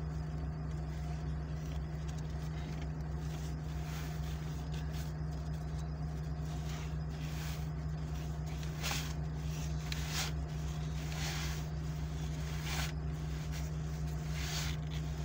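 Steady low hum inside a stationary car, with cloth brushing against the phone's microphone and scattered short clicks and rustles as a seat belt is handled.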